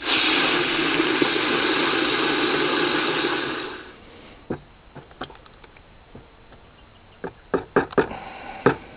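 Garden hose spray nozzle jetting water into a bucket of cow-manure slurry, a steady spray and splash that stops abruptly after about three and a half seconds. Then a wooden stick stirring the slurry, with scattered light knocks against the bucket.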